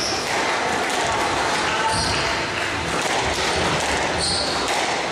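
Squash rally in a large hall: the ball is struck by rackets and smacks off the court walls, with players' quick steps on the court floor, over a steady background of hall and crowd noise.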